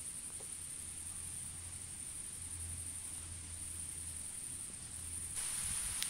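Steady high-pitched chirring of an insect chorus. About five seconds in, a rushing noise rises and joins it.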